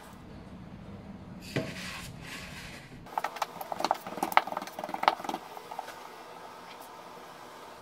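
Bread dough being shaped by hand on a silicone mat. First comes rubbing and a knock from a small wooden rolling pin. After a sudden change about three seconds in, there is a quick run of sharp clicks and taps as the dough is rolled and pressed up by hand.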